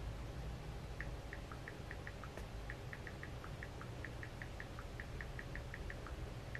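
iPhone on-screen keyboard clicks as a message is typed: a run of quick, light ticks, about four or five a second, starting about a second in, a few of them a little lower in pitch. A low, steady hum underneath.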